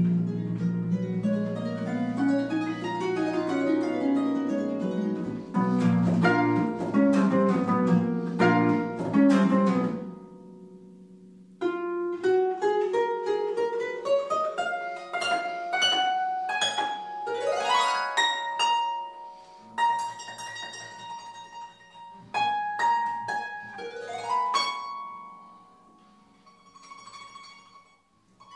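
Solo concert pedal harp playing: dense arpeggios sweep up and down for about ten seconds, then after a brief pause come rising runs of single plucked notes that ring on and grow quieter toward the end.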